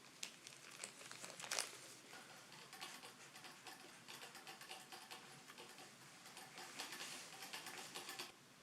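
Kittens moving about: light, rapid patter and rustling that stops suddenly near the end.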